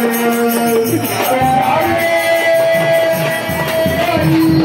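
Devotional bhajan music: a melody of long held notes over a steady jingling tambourine-like rhythm, with drum beats coming in about a second and a half in.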